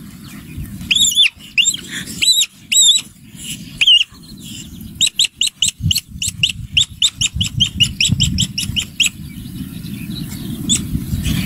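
Ground squirrel giving a series of high, arched chirping calls, the alarm calls of a rodent under attack by a polecat-like predator. The chirps come singly and in pairs at first, then speed up to about three or four a second from about five seconds in and stop about two seconds before the end, over a low rumble.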